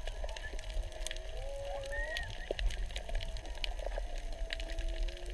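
Whale song heard underwater: several long moans that glide slowly up and down and overlap one another, over scattered sharp clicks and a steady low rumble of water.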